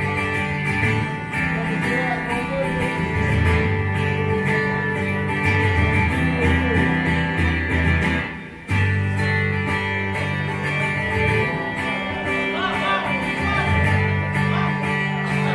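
Live acoustic band music led by strummed guitar, playing steadily with a short drop in level about eight and a half seconds in.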